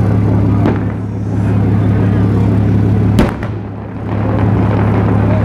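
Fireworks going off: a faint crack under a second in and a sharp, echoing bang a little after three seconds in, over a steady low hum.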